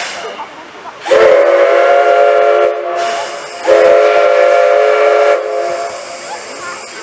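C11 steam locomotive's whistle sounding two long blasts with a short gap between them, each a steady chord of several tones.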